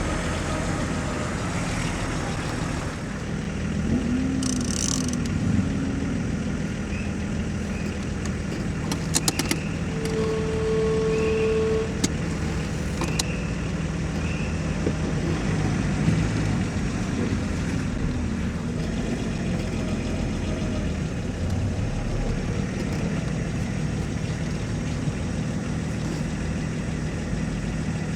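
Vehicle engine noise running steadily, with a few sharp clicks about nine seconds in, followed by a steady two-second tone.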